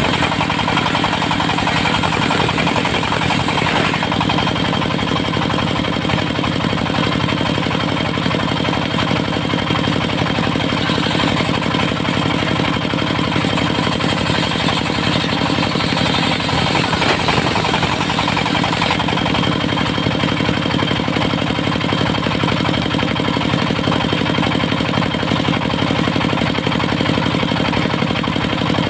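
Diesel engine of a portable circular sawmill running steadily, with a fast, even chugging pulse.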